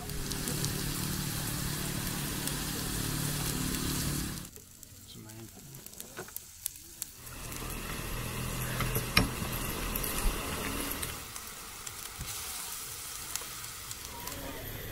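Food sizzling as it fries, with voices in the background. The sizzle drops away for a few seconds partway through, then returns with a few sharp clicks.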